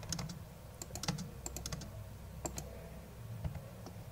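Computer keyboard keys tapped a few at a time, giving scattered separate clicks over a faint low hum.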